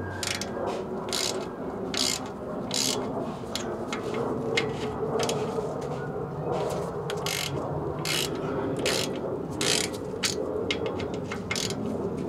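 Socket ratchet wrench clicking in short runs of strokes as it turns a bolt on a truck's rear differential cover.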